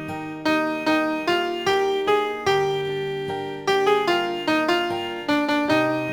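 Solo piano playing a slow, gentle melody over sustained bass notes, each note struck and then fading away.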